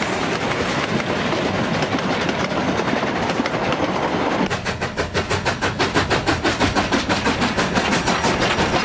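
A narrow-gauge train running on the rails, steady at first, then with a quick regular beat of about five strokes a second setting in about halfway through.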